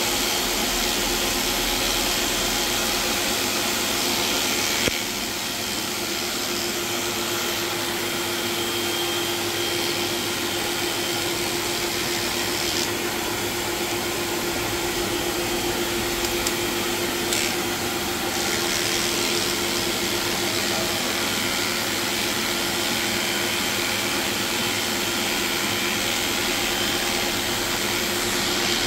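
Electric dog clipper running steadily with a continuous motor hum and hiss as it shaves off matted coat.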